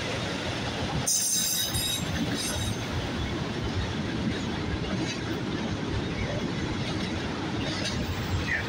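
Autorack freight cars rolling past with a steady rumble of steel wheels on the rails. A brief high-pitched wheel squeal comes about a second in.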